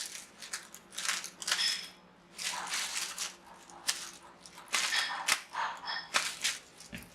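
Packaging being cut and pulled open: irregular bursts of crinkling, rustling and crackling, with a few sharp clicks.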